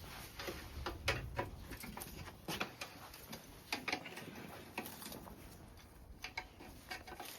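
Irregular metallic clicks and clinks of hand tools and loose parts being worked on a motorcycle during dismantling, a dozen or so sharp ticks scattered unevenly over a low background rumble.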